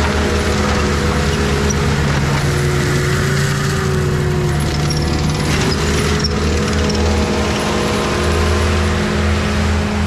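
ASV RT-120 Forestry compact track loader's diesel engine running steadily at high revs, driving its forestry mulcher drum as it grinds brush and ground cover. The engine note sags briefly under load about four seconds in, with a few sharp cracks of material being chewed around the middle.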